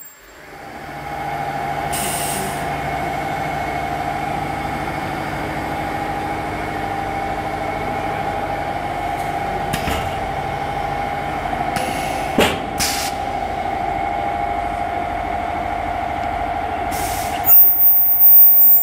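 Automatic filter bag welding machine running with a steady whine, broken by a few short hisses and two sharp clicks. The whine builds up over the first second or so and stops abruptly near the end.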